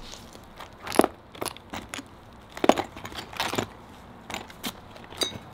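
Gloved hands picking through a compartmented box of costume jewelry: scattered sharp clicks and crackles as pieces knock together and are handled, the loudest about a second in and again near three seconds.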